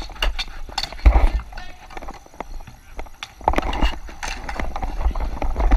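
Dek hockey play on a plastic sport-court surface: running footsteps and sharp, irregular clacks of sticks and the ball on the tiles, with heavy low thumps on the body-worn camera's microphone.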